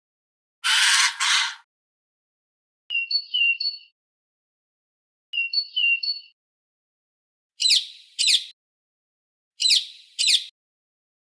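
A sequence of bird calls separated by dead silence. First a harsh double caw, then two bursts of short clear whistled notes, then two bursts of quick downward-sweeping chirps.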